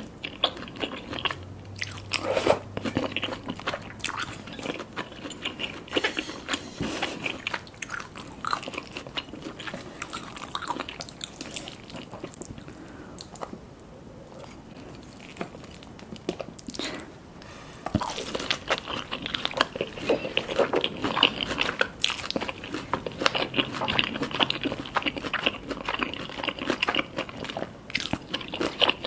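Close-up eating sounds: crunchy bites into Korean fried chicken and chewing, with dense crackling crunches. The crunching eases off for a few seconds about midway, then comes back louder and denser.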